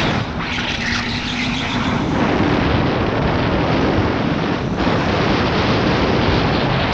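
Electric go-kart at speed, heard mostly as wind rushing over the onboard action camera's microphone, mixed with tyre and drivetrain noise. A faint steady whine fades out about two seconds in, after which the rushing noise carries on unbroken.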